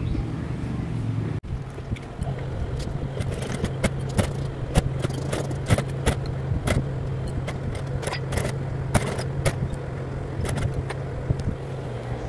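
Industrial sewing machine's motor humming steadily, with irregular sharp metallic clicks and taps as it stitches a folded fabric bag handle and the fabric is fed by hand. The hum drops out briefly about a second and a half in.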